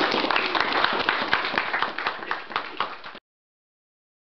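Audience applauding, with dense clapping that cuts off suddenly about three seconds in.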